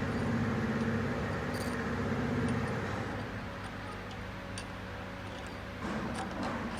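Steady mechanical hum that drops in pitch and level about three seconds in, with a short cluster of clicks and knocks near the end.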